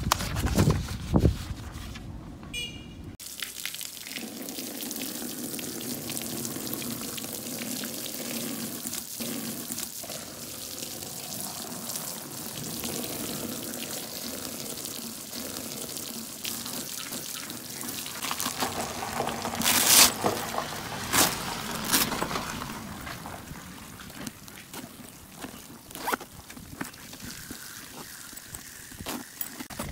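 A steady stream of water pouring onto the silicone-coated exterior of a fireproof document bag and splashing onto concrete, with a few louder bursts about two-thirds of the way through.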